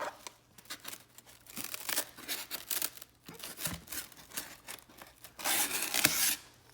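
Product packaging being torn open and crinkled by hand: irregular rustling and scraping, with a longer, louder tear about five and a half seconds in.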